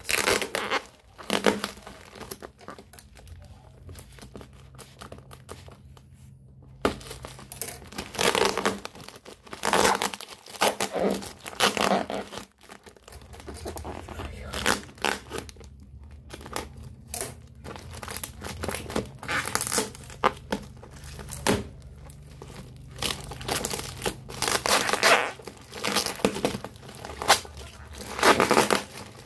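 Plastic parcel wrapping over black bubble wrap being crinkled and torn open by hand, in irregular bursts, with a quieter stretch a few seconds in.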